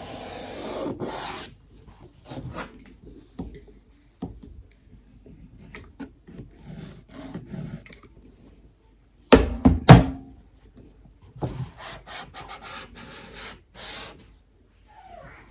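Rubbing and scraping on a wooden skirting board while freshly applied acrylic caulk is worked and wiped, with a couple of loud knocks a little past the middle.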